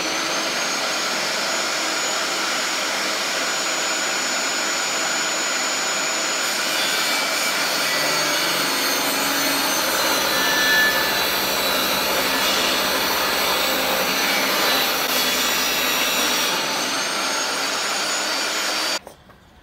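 Benchtop table saw running with a steady high motor whine while oak board is cut into 3-inch strips; the noise stops suddenly near the end.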